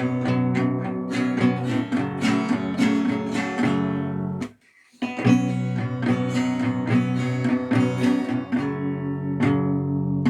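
Acoustic guitar strummed in a steady rhythm of chords, breaking off for about half a second partway through, then resuming; near the end a last chord is struck and left to ring and fade.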